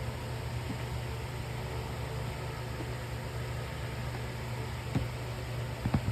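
Steady low hum with an even hiss, and a few light knocks near the end.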